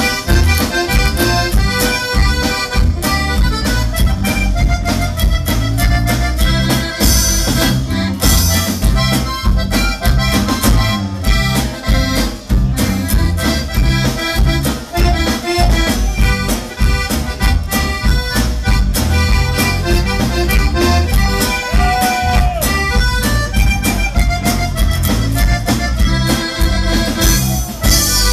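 Live Tejano band playing an instrumental passage: accordion carrying the melody over electric bass, acoustic guitar and drums, with a steady beat.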